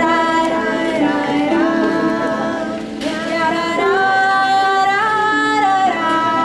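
Live music: singing in long held notes, with more than one pitch sounding at once.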